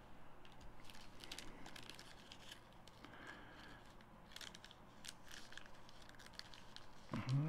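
Trading cards being slid and shuffled in the hands: faint papery rustling with quick flicks and clicks as the cards move over one another.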